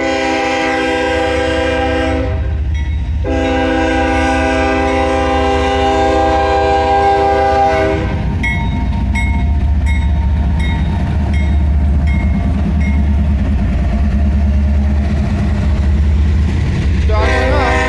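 A CSX freight locomotive's horn sounding a long blast, then after about a second's pause a longer one, as the train reaches the grade crossing. The horn stops about 8 seconds in, giving way to the heavy low rumble of the diesel locomotives and the train rolling past. Over the rumble, the crossing's electronic bell dings about twice a second.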